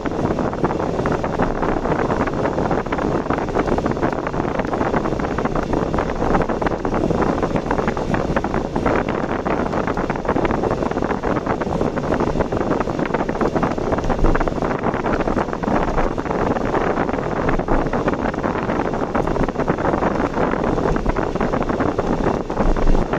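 Steady road and wind noise of a car driving along an ordinary road, unbroken and even.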